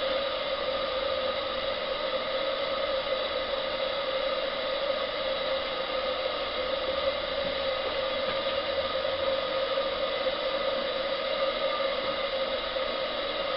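Solid-brass 28mm butane boiler burner firing steadily under a model steam boiler: a continuous flame noise with a pronounced steady hum, unchanging throughout.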